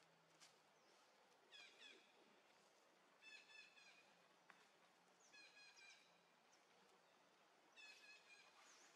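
Faint, high-pitched animal calls: short chirping bouts of several quick notes, repeated about every two seconds, over a faint background hiss.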